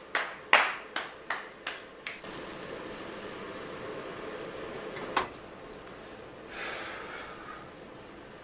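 Sparse sound effects in the quiet opening of a pop track: a run of seven sharp snaps, a little over two a second, a single snap about five seconds in, then a short soft hiss, over a faint steady background.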